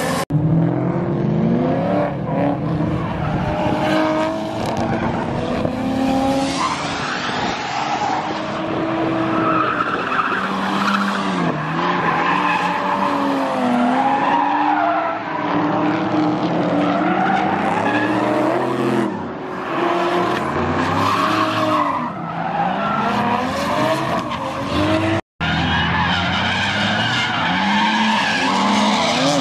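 Several drift cars sliding through corners: engines revving up and down over one another, with tyres squealing as they skid. The sound drops out for a split second twice.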